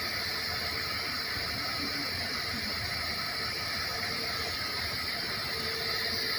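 Steady hiss of compressed air flowing through a dew point transmitter's sample line.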